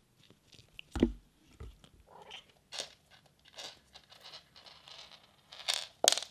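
Bengal kitten at play with a toy: a string of short scuffing noises, with a sharp thump about a second in and another loud burst near the end.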